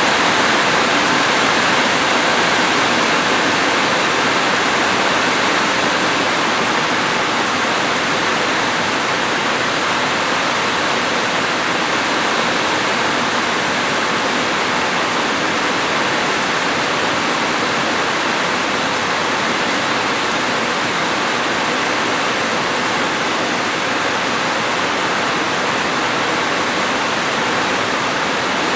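Steady heavy rain, a dense even hiss with no single drops or thunder standing out.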